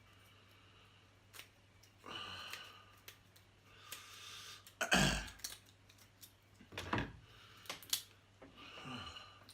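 Close-up eating sounds from a person working through small blue crabs: short bursts of mouth noise, a loud knock or crack about five seconds in, and sharp clicks near seven and eight seconds.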